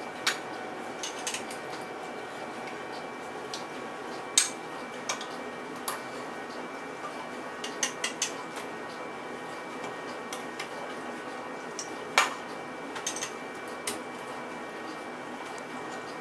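Plastic Duplo bricks clacking and clicking as they are handled and pressed onto a tall brick tower, in scattered single knocks, the loudest about four seconds and twelve seconds in, over a steady faint hum.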